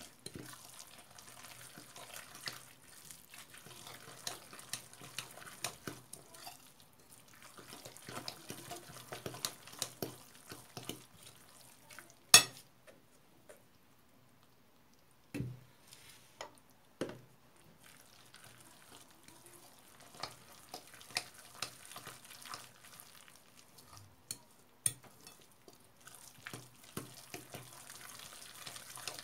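A utensil stirring a thick, wet batter of grated vegetables, egg and flour in a bowl: irregular squelchy clicks and scrapes. There is a sharp clack against the bowl about twelve seconds in, a short pause, then a couple of heavier knocks.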